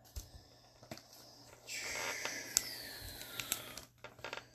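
A trading card being slid into a soft plastic sleeve: a rasping plastic slide of about two seconds, falling slightly in pitch, among light ticks and clicks of handling.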